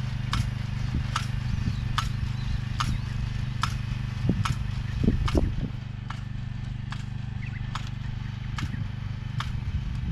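Small engine of a mechanical vegetable transplanter running steadily while planting corn seedlings, with a sharp click from the machine about every 0.8 seconds and a few louder knocks around the middle.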